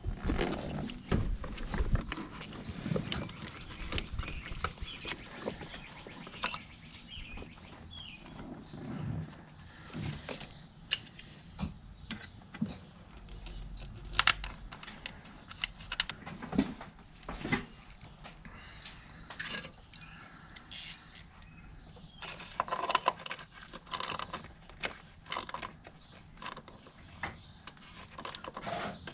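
Hand tools and engine parts being handled while a coil pack is refitted over a spark plug: scattered metallic clicks, knocks and light rattles, with small rustles between.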